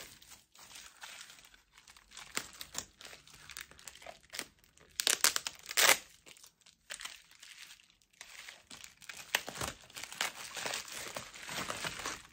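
Packing wrap crinkling and tearing as it is pulled off a crystal tower, in irregular bursts, loudest about five to six seconds in.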